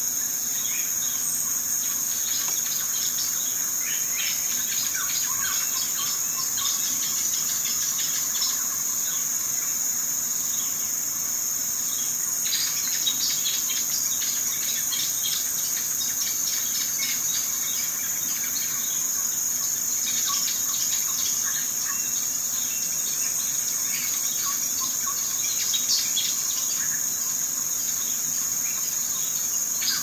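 Steady high-pitched chirring of crickets, unbroken throughout, with faint scattered clicks and chirps over it.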